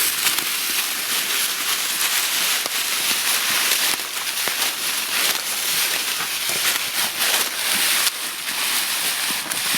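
Dry leaves and brush rustling and crackling, a continuous uneven crunching with no pause.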